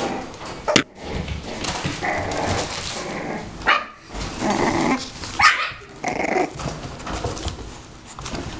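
Six-week-old bulldog puppies barking and yelping in play, with a sharp knock about a second in and two loud short yelps near the middle.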